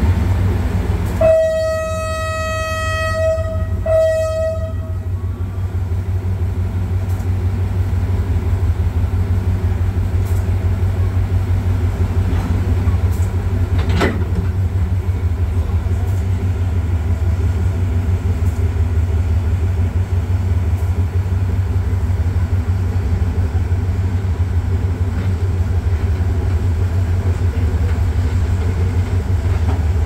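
Twin Cummins LTA50L V16 diesel engines of a locomotive running with a steady low drone, heard close up from the car behind. Over them the locomotive horn sounds two blasts on one note, a long one about a second in and a short one just after. A single sharp knock comes about fourteen seconds in.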